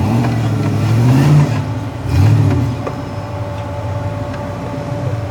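V8 Jeep engine revving up to a peak about a second in, dropping back, blipping again just after two seconds, then running steadily at lower revs.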